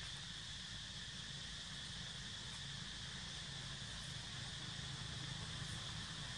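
Steady insect drone in woodland, a continuous high buzz, over a low steady rumble.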